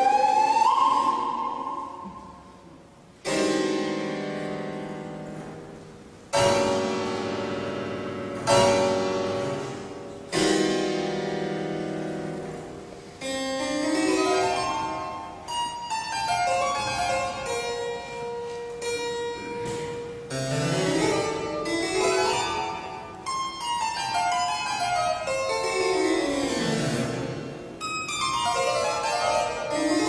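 Harpsichord playing alone: four loud chords a few seconds apart, each left to ring and die away, then quicker figures and descending runs. A recorder's rising glide ends about a second in.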